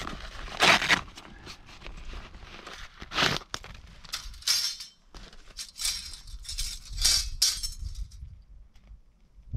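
Thin metal parts of a small folding wood-burning camp stove clinking and clattering as they are handled and fitted together. Near the end, dry kindling sticks knock against it as they go in.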